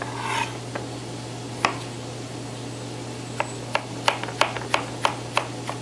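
Chef's knife chopping a red bell pepper on a plastic cutting board: a short scrape near the start, a couple of single knife strikes, then from about halfway a steady run of chops about three a second. A steady low hum sits underneath.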